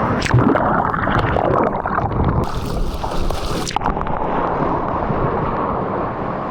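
Surf and wind rushing over a camera microphone in the sea, with a hissing burst of spray from about two and a half seconds in that stops a little over a second later.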